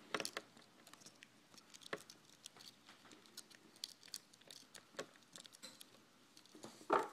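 Scattered small clicks, taps and scrapes of tiny screws and a knife tip being handled on a laptop's screen assembly, with one louder knock near the end.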